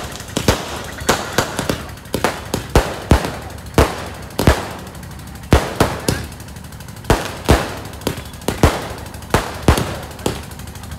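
Aerial fireworks bursting overhead: sharp bangs in quick, irregular clusters of two to four, with short lulls between volleys.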